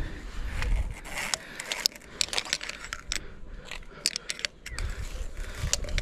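Clinking and rattling of an iron handrail chain, with scrapes, as a climber hauls himself up a steep cliff path hand over hand. The sharp metallic clicks come irregularly, several a second.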